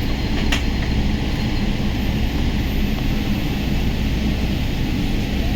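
Steady cabin noise inside a Boeing 777-300 airliner: a constant low rumble of the engines and airflow. A brief click comes about half a second in.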